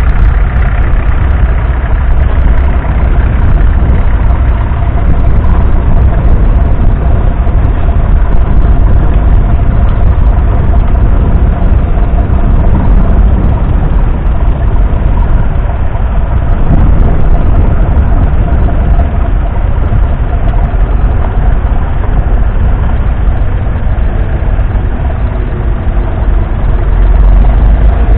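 Ferguson TEF 20 tractor's 2.1-litre four-cylinder diesel engine running steadily under load, pulling a two-furrow plough through the soil.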